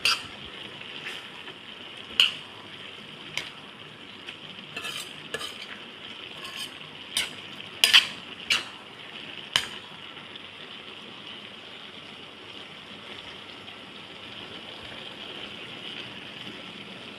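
Spaghetti with vegetables and ground meat sizzling steadily in a stainless steel pan while a metal spoon stirs and tosses it, clinking and scraping against the pan about ten times in the first ten seconds. After that only the steady sizzle goes on.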